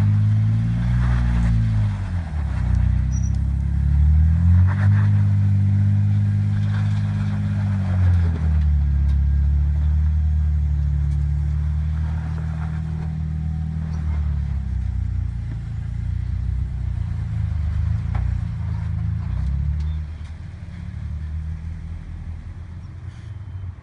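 Jeep Wrangler engine revving up and falling back in several long pulls, then running steadier at lower revs and dropping in level near the end, with a few scattered knocks.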